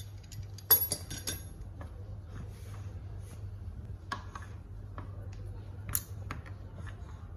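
Steel machine vise parts being handled, metal clinking and clicking against metal, with a sharp ringing clink just under a second in and another about six seconds in. A steady low hum runs underneath.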